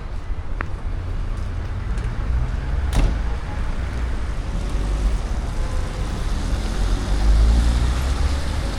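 City street traffic on a rainy day: cars passing with a steady hiss and a heavy low rumble. A sharp click comes about three seconds in.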